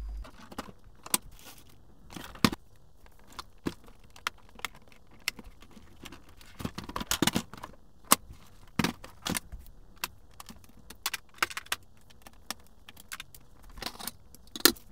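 Plastic casing of an HP Officejet inkjet printer being handled and pried apart: irregular sharp clicks, knocks and rattles as covers and the front tray are worked loose, with short clusters of clicks and a louder knock near the end.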